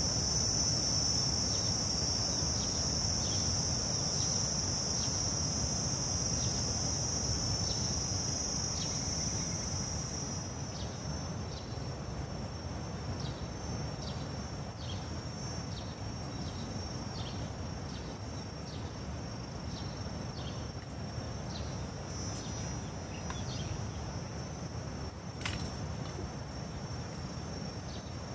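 Steady, high-pitched shrilling of insects, loud for about the first ten seconds and then thinning to a quieter, narrower hum, over a low outdoor rumble. A faint run of short ticks sounds underneath, and a single sharp click comes near the end.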